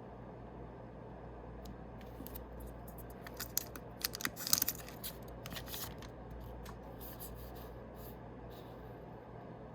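Yu-Gi-Oh booster pack wrapper and cards being handled and opened: a burst of crinkles, snips and clicks through the middle, over a steady low hum.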